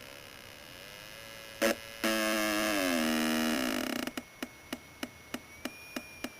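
Homemade electronic sound-effects generator making synthetic noises: a faint wavering tone, a short loud blip about one and a half seconds in, then a loud buzzy tone that drops in pitch and gives way to a series of separate clicks that speed up near the end.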